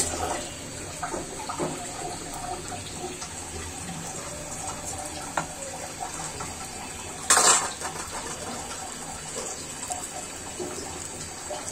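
Lentil fritters deep-frying in hot oil, a steady bubbling sizzle, with one brief louder rush of noise about seven seconds in.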